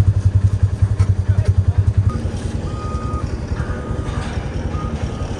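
Idling engine of a side-by-side utility vehicle, a loud, fast low throbbing. About two seconds in it gives way to a quieter steady engine rumble with a faint high beep that comes and goes.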